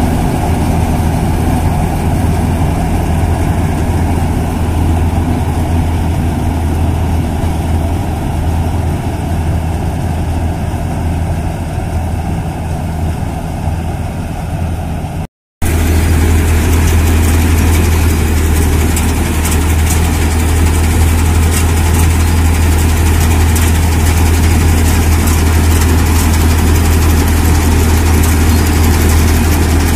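Tractor-mounted combine harvester on a John Deere tractor running steadily while it harvests paddy, a loud steady engine hum under the rattle of the machinery. About halfway through the sound cuts out for a moment and then resumes a little steadier and brighter.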